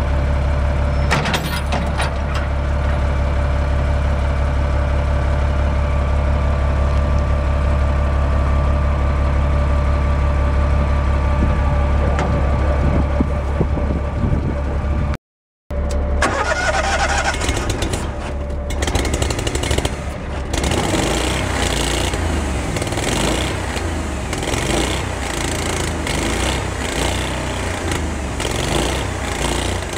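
A diesel truck engine idles with a steady low hum while a steady mechanical whine runs as the truck's boom is lowered on its winch. After a break about halfway, the engine of the Lincoln Ranger 10,000 welder/generator runs with an uneven, pulsing sound.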